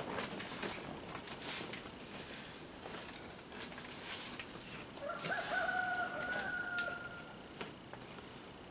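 Light wooden knocks as frame pieces are handled on a plywood workbench. About five seconds in comes one long animal call lasting about two and a half seconds.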